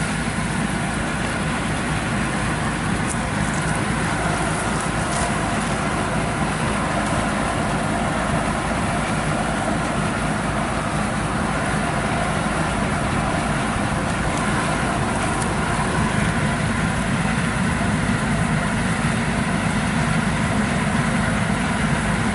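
Yanmar rice combine harvester's diesel engine and threshing machinery running steadily, close by.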